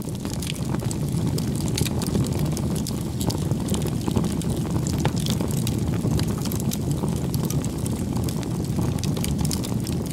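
Wood fire burning in a fireplace: irregular crackles and pops over a steady low rumble.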